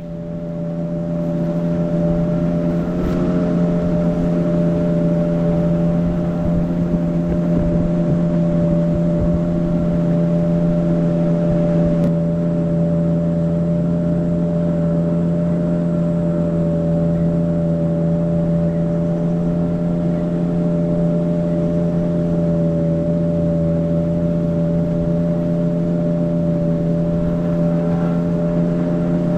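Longboat outboard motor running steadily under way, its level building over the first couple of seconds and then holding at a constant pitch.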